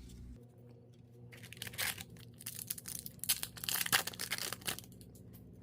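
A foil trading-card pack wrapper being torn open and crinkled by hand: a run of crackling rustles through the middle few seconds.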